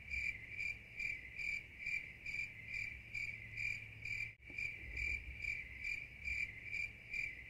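Crickets chirping in an even rhythm, about two to three chirps a second, over a low steady hum, with a brief break a little past halfway.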